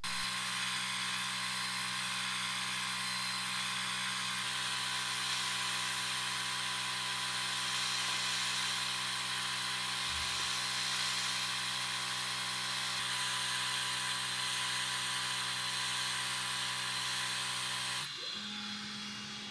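Creality Falcon2 22W diode laser engraver running while it cuts a test grid in plywood: a steady hiss of its air assist and fan over a low hum. About 18 seconds in the hiss drops away sharply, leaving a fainter hum.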